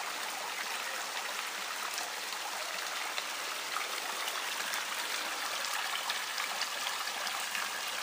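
Running water trickling and splashing steadily.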